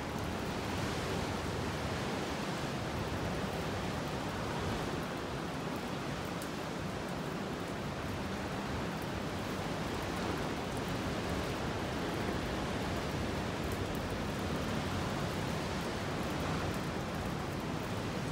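Steady rush of ocean surf breaking on rocks, mixed with a waterfall spilling down the cliff.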